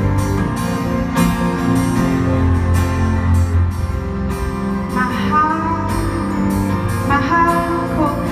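Live band music in an arena, led by a strummed guitar and heard from the audience, with a voice rising over it briefly about five and seven seconds in.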